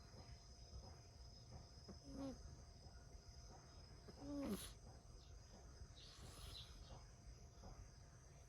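Scottish Fold kitten snoring in deep sleep with its mouth open: short snores that fall in pitch, about one every two seconds, the loudest about halfway through. A steady high drone of cicadas runs underneath.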